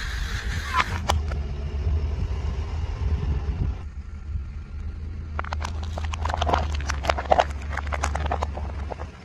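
A car engine running low and steady throughout. An aerosol spray can hisses for the first second. From about five and a half seconds in, a car tyre rolls onto thin plastic food bowls and crushes them in a string of sharp cracks and crunches.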